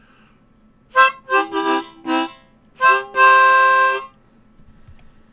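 Short musical phrase on a wind instrument with a reedy, harmonica-like tone: a few quick notes, then one long held note that stops about four seconds in.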